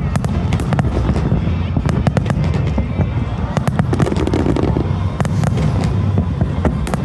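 Aerial fireworks going off in quick succession: a continuous deep rumble of booms with many sharp crackles and pops scattered through it, and music playing underneath.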